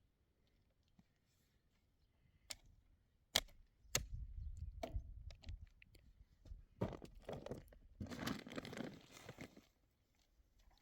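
A few sharp knocks, then a stretch of rustling and scraping as objects are handled.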